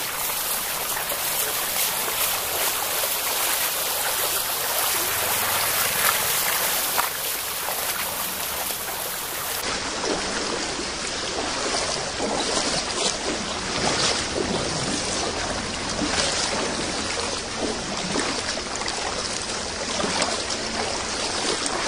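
Muddy floodwater rushing fast and churning through a flooded street in a steady rush of water.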